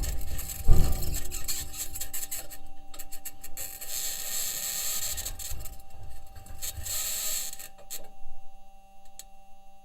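Perseverance rover's aluminium wheels rolling over Martian rock: scraping and grinding that swells and fades, with a heavy knock about a second in, over a thin steady tone.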